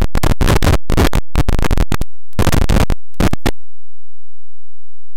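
Digital audio glitch: loud, harsh crackling bursts of static stutter on and off for about three and a half seconds, then the sound drops out completely.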